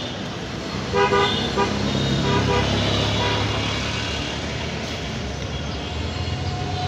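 Street traffic: a steady engine rumble with short vehicle horn toots, a few about a second in and another around two and a half seconds in.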